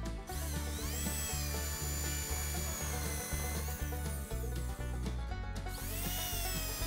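Electric drill with a countersink bit boring into wooden boards. The motor whines up shortly after the start, runs steadily for about three seconds, winds down, then spins up again near the end for the next hole. Background music with a steady beat plays throughout.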